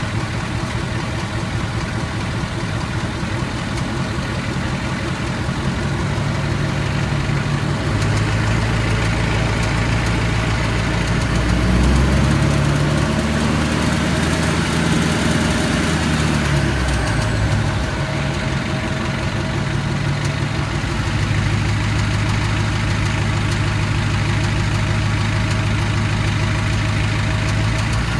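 Ford 6.7 L Power Stroke V8 turbodiesel running with a clicking noise, its engine note shifting in pitch a few times.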